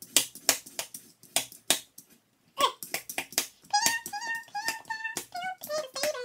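A small blade scraping peel off a raw potato in quick, separate strokes, about two or three a second. From about halfway, a high voice hums a short tune of clipped notes that steps down in pitch near the end.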